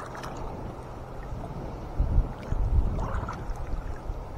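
Water sloshing and dripping as a gill net is hauled by hand into a small boat, with heavier low rumbling thumps from about two seconds in.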